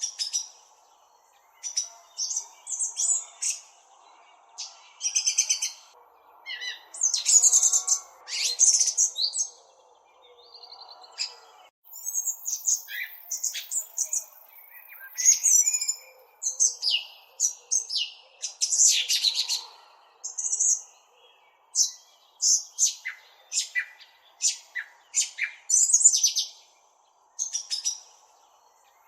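Small songbird chirping at close range: rapid runs of high, sharp chirps in irregular bursts of a second or two, with short pauses between them.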